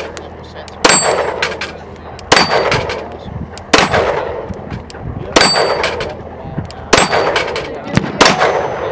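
A Glock 17 9mm pistol fired six times at a steady pace, about one shot every one and a half seconds, at a steel plate rack; several shots are followed by the short high ring of a struck steel plate.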